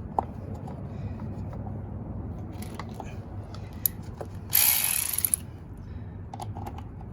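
Hand work on a plastic radiator cooling fan assembly while a resistor is fastened to it: scattered clicks and taps of parts and tools, and a short rasping burst a little past halfway, the loudest sound here.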